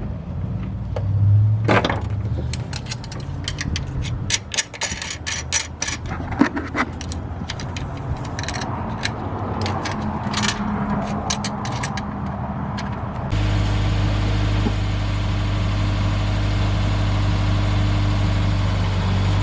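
Many sharp clicks and metal knocks from work on the car. About thirteen seconds in, a steady engine idle starts abruptly: the Subaru WRX's turbocharged flat-four, its exhaust muffler-deleted.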